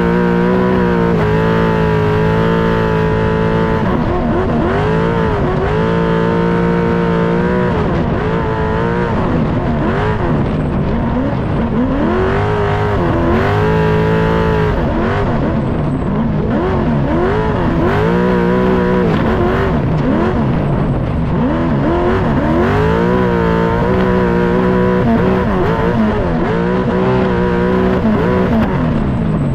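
All-wheel-drive trophy truck's race engine running hard, its revs climbing and dropping over and over as the truck accelerates, shifts and lifts.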